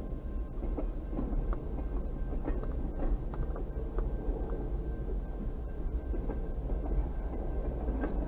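Double-stack container train cars rolling past on steel rails: a continuous low rumble of wheels on track, with scattered short clicks.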